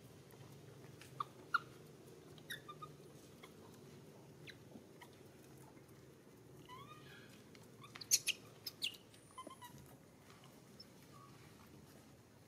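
Macaques giving short, high-pitched squeaks and chirps scattered through, with a louder cluster of sharp squeaks about eight seconds in.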